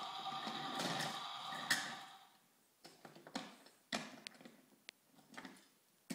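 A steady mechanical whir that stops a little over two seconds in. It is followed by a string of separate light knocks and clacks as wooden toy trains and track pieces are handled on a play table.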